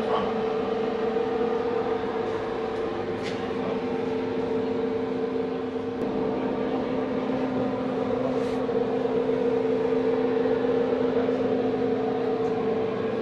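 Steady mechanical drone, an even hum of running machinery that does not change, with a couple of faint ticks.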